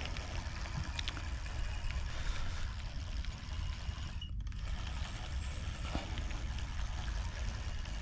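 Steady rush of flowing water with a low rumble underneath, briefly dipping about four seconds in.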